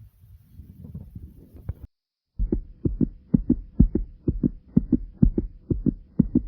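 Human heartbeat recorded up close. A quieter, muffled stretch is followed after a short break about two seconds in by loud, low lub-dub beats in pairs, about two a second.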